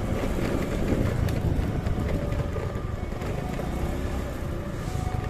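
Diesel locomotive engine running: a steady low rumble with a faint steady whine above it.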